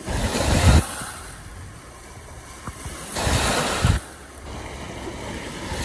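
Small waves washing up onto a sandy shore in two surges about three seconds apart, over a steady low hiss of water.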